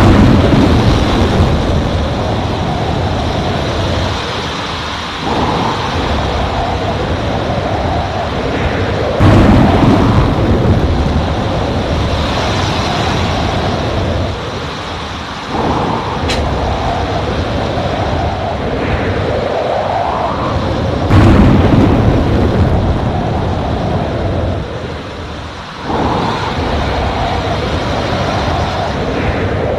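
Thunderstorm: wind gusting with a rising and falling whistle over rain noise and deep rumbling thunder, with sudden loud surges about 9 and 21 seconds in.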